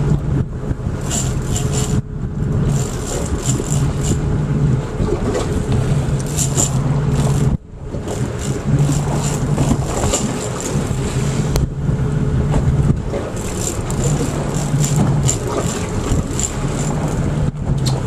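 Boat engine running steadily at idle, with water noise around the hull and short runs of fast high clicks.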